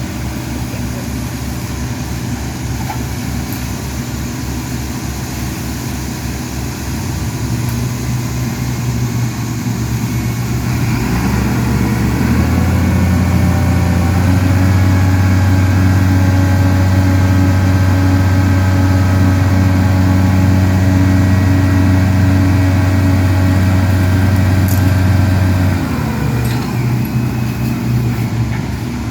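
Crane or man lift engine idling, then speeding up about a third of the way in and holding a higher steady pitch before dropping back to idle near the end, as when the machine is throttled up to work its boom.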